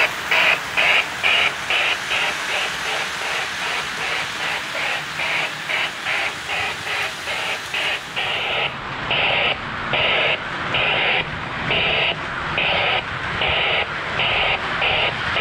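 O scale Lionel model steam locomotive running on the layout, its chuffing sound going in a steady rhythm of about three chuffs a second; about halfway through the chuffs grow louder and a little slower, over a rising rumble of wheels on track.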